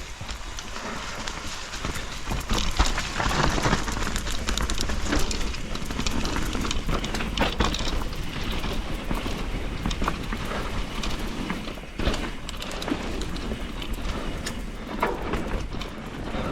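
Enduro mountain bike riding over rough, wet ground: steady rushing and rumbling with frequent sharp clicks and rattles from the bike.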